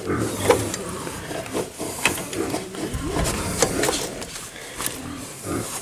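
Irregular clicks and knocks of tools and metal parts being handled while working on a motorcycle wheel and tyre.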